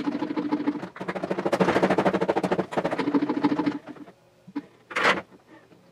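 Top-loading washing machine churning a drum full of golf balls, sped up: a dense, rapid clatter of balls knocking against each other and the drum over a low motor hum. The clatter stops abruptly about four seconds in, and a single short, loud burst of noise follows about a second later.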